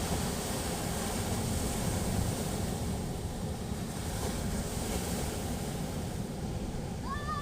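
Sea waves washing steadily onto the shore, a constant surf noise heavy in the low end. Just before the end a short high call rises and falls.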